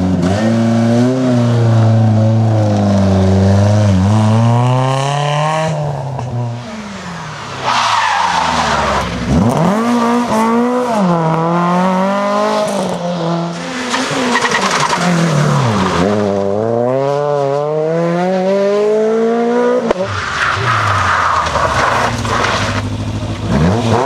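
Rally car engines at full throttle, several cars one after another. Each engine climbs in pitch through the revs, then drops sharply at each gear change or lift.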